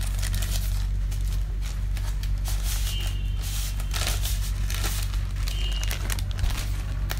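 Plastic courier mailer being torn open and crinkled by hand as a package is unwrapped, with a steady low hum underneath.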